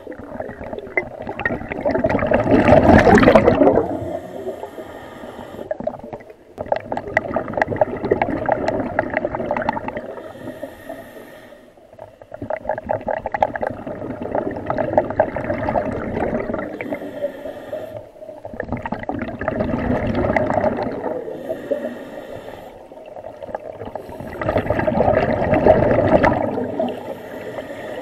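Scuba diver breathing through a regulator underwater. The breaths come in a slow cycle of a short hissing inhale, then a longer gurgling rush of exhaled bubbles, about five breaths in all.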